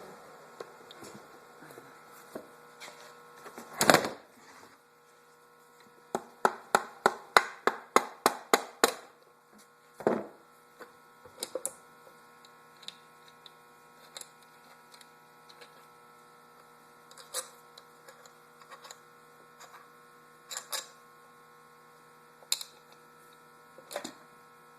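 Tools knocking and tapping on the Honda CR80 engine's cases during teardown. There is one loud knock, then a quick run of about ten taps at roughly four a second, another knock, and scattered lighter clicks over a steady low hum.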